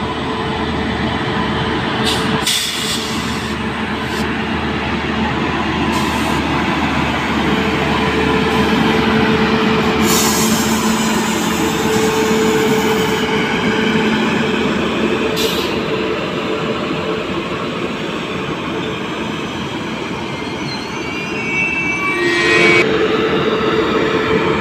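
A WAP7 electric locomotive and its passenger coaches rolling past close by: steady wheel-on-rail rumble, with a few sharp clacks along the way and a brief squeal near the end.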